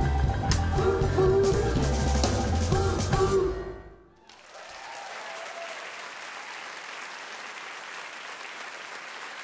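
A live band with piano, upright bass and drum kit plays the final bars of a song, with drum hits over a steady bass, and stops about three and a half seconds in. After a brief hush the audience applauds steadily.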